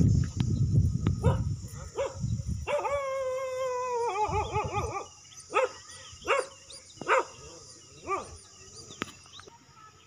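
A low rumble for the first two and a half seconds, then an animal calls: one long drawn-out call that glides slightly down and breaks into a quavering stutter, followed by about five short, separate yelps spaced under a second apart.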